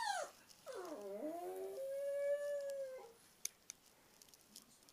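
Pug howling: a short falling cry, then a longer howl that dips in pitch and then holds one steady note for about a second before breaking off. Two faint clicks follow.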